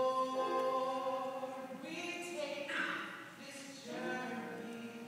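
A small group of singers holding long notes together. About two seconds in the held chord gives way briefly to a busier passage, then the sustained singing resumes.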